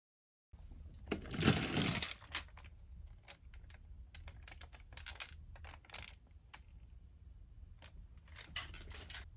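Hard plastic toy robot parts being handled: a rustle about a second in, then scattered light clicks and clacks.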